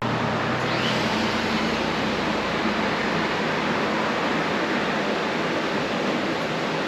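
Chainsaw running steadily as it cuts into a log for a carving, heard as a dense, even rushing noise with little clear engine pitch.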